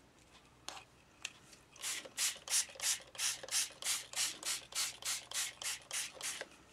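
Hand trigger spray bottle spritzing water in about fifteen quick pumps, about three a second, wetting Brusho powder dye sprinkled on fabric so the colour activates and runs.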